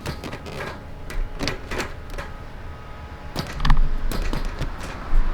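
Irregular clicks and taps of a shift knob and rubber shift boot being worked and threaded onto a car's shift lever, louder and heavier in the second half.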